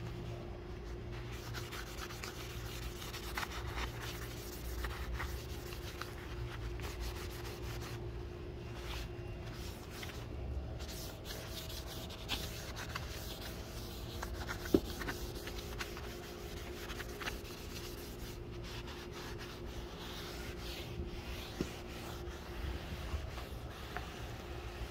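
Cloth rag rubbing and wiping over a stained wooden board in irregular strokes, buffing off excess finish, over a steady low hum. A single sharp tap about fifteen seconds in.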